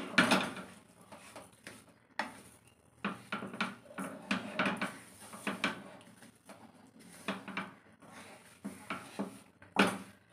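Wooden spatula stirring a thick khoa-and-sugar filling in a kadai, scraping and knocking against the pan in an irregular run of taps and scrapes. The sharpest knocks come right at the start and near the end.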